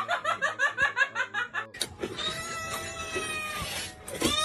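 A person laughing in quick, evenly repeated bursts, about six a second, then a long drawn-out high call lasting about two seconds. Right at the end a kitten starts meowing.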